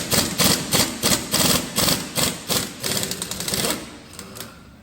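Impact wrench hammering on a lug nut in short repeated bursts, a few a second, until it stops near the end: the nut is over-tightened and slow to break loose.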